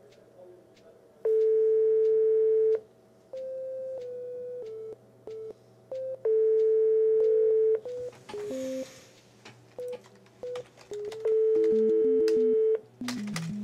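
French telephone ringback tone: a steady tone rings three times, about a second and a half each with pauses between, while the called line goes unanswered. Short, quieter electronic notes at other pitches sound between the rings.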